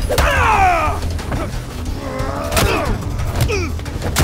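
Fistfight: men's pained grunts and cries that fall in pitch, with a few sharp hits of blows landing.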